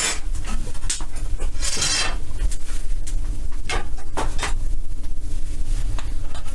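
Scattered knocks and clanks, with a short scraping rasp about two seconds in, over a steady low rumble and hum, while a boiler is being fired up.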